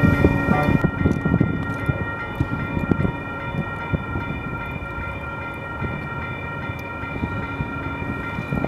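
Electric light-rail train moving along a station platform: a low rumble with scattered wheel clicks under a steady high whine.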